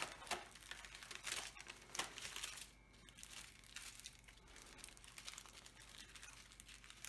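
Small clear plastic baggies of diamond painting drills crinkling as they are handled and pulled apart, busier in the first two seconds, then fainter.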